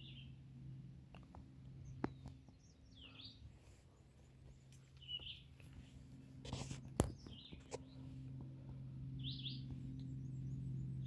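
Small birds calling outdoors: short chirps every couple of seconds, over a low steady hum that drops out for a few seconds in the middle. A few sharp clicks stand out, the loudest about two seconds and seven seconds in.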